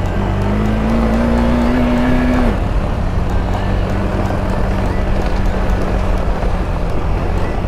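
KTM 390 Adventure's single-cylinder engine running as the bike is ridden along a dirt trail. Its note climbs slightly, drops about two and a half seconds in, then holds steady.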